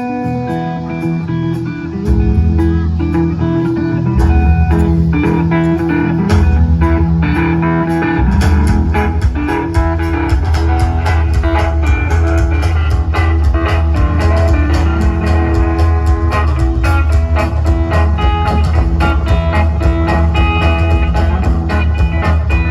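A live guitar band with bass and drums, amplified through an RCF line-array PA of six 26A boxes with 9006 and 9004 subwoofers. The heavy bass comes in about two seconds in and is full and steady from about eight seconds in.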